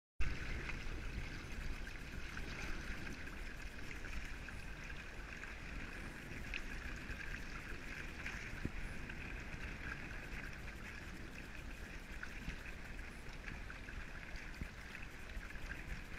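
Water rushing and hissing steadily along the hull and outrigger floats of a strip-planked wooden sailing kayak trimaran under way, with a low rumble of wind on the microphone.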